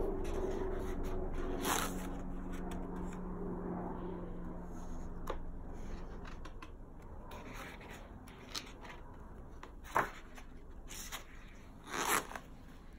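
Stiff pages of a spiral-bound photo album being handled and turned: paper rustling and rubbing, with sharp flaps of a page about ten and twelve seconds in.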